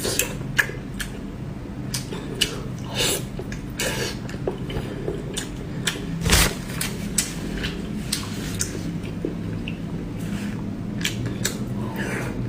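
Scattered sharp clicks and taps of utensils against a dish during eating, with faint chewing, over a steady low hum.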